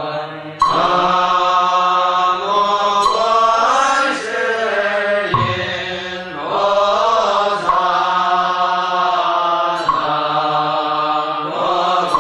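Chinese Buddhist morning-service chanting by a group of voices in unison: long held notes that slide slowly up and down in pitch, with brief breaks for breath between phrases, about a second in, near halfway, and about ten seconds in.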